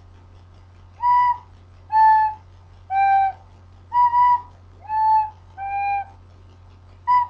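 A simple tune played slowly on a white plastic school recorder. It starts about a second in, with separate clear notes about one a second. The notes fall in short runs that step down in pitch, and some notes come in quick pairs at the same pitch.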